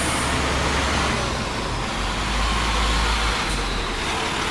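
Road traffic going by: a steady rumble of engine and tyre noise that swells briefly in the middle.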